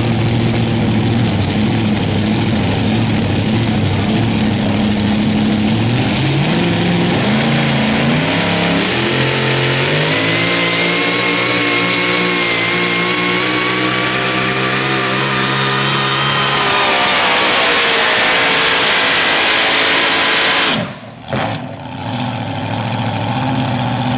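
A pulling vehicle's engine idles, then climbs in pitch over a few seconds and runs hard at high revs for several seconds, growing louder and noisier as it goes. Near the end the sound drops out abruptly, and an engine is idling again just after.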